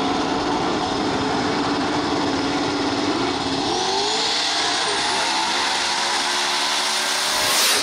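Drag-race cars' engines running hard at the starting line, then rising in pitch as they launch about three and a half seconds in, with a loud swell near the end.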